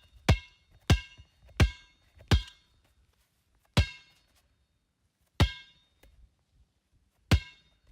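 Basketball bouncing on a hard floor, each bounce a sharp thump with a short ringing ping. Four dribbles in quick, even succession, then three more single bounces with longer pauses between them.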